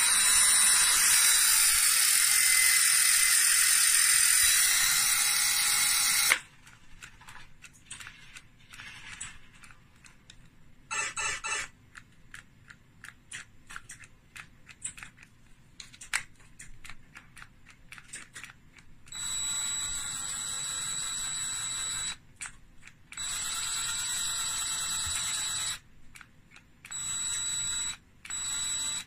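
DeWalt DCD771 20V Max compact cordless drill/driver running free in the hand, triggered in several bursts. One long loud run lasts about six seconds, then comes a stretch of trigger and handling clicks with one short burst. Near the end there are three more runs of two to three seconds each with a steady high-pitched whine.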